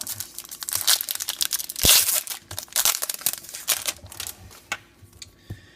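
Wrapper of a trading card pack crinkling and being torn open, loudest about two seconds in, then settling into lighter rustling.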